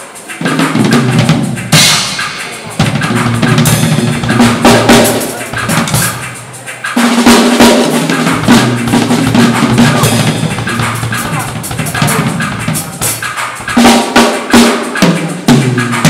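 Acoustic drum kit played live in a sound check: bass drum, snare and tom fills with cymbal crashes, broken by a few short pauses between phrases.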